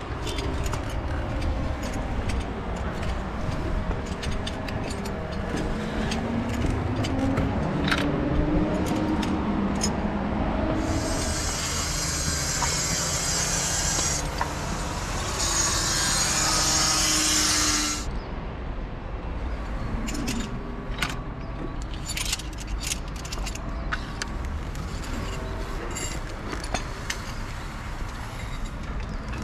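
Steady rumble of city traffic from below, with scattered sharp clicks and knocks. A hiss starts abruptly about eleven seconds in and cuts off about seven seconds later.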